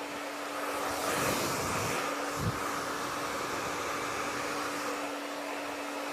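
Handheld hair dryer running steadily: a rush of air with a steady motor hum, and a brief low knock about two and a half seconds in.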